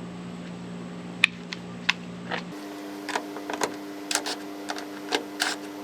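Irregular light metallic clicks and ticks of a hand tool and bolts as the hood-latch mounting bolts are snugged down. A few come in the first couple of seconds, then a denser scatter follows.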